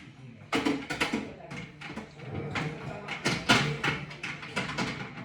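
Kitchen items being handled on a counter: a run of irregular clicks and knocks, a few a second.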